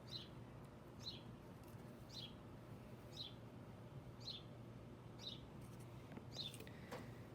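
A faint, short, high chirp that falls in pitch, repeating evenly about once a second over a quiet background.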